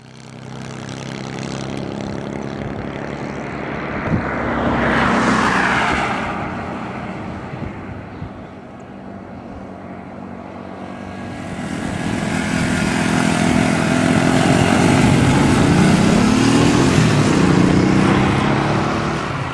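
Motor vehicles passing on a highway: one goes by about five seconds in with its pitch dropping as it passes, then an engine grows louder over the second half and revs up with a rising pitch.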